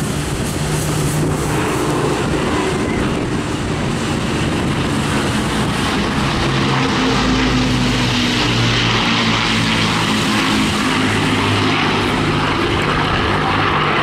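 Avro Lancaster's four Rolls-Royce Merlin V12 engines droning in a low flypast, a steady multi-engine propeller sound that grows a little louder as the bomber passes overhead about halfway through.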